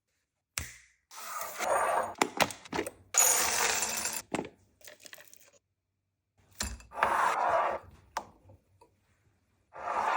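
Clinking and rattling of small hard things against kitchenware, in three spells separated by short pauses.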